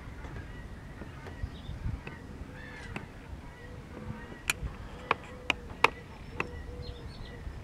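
Wetland ambience: birds calling faintly in the distance over a low background rumble. In the second half come about five sharp clicks a fraction of a second apart, and a short steady note that repeats several times.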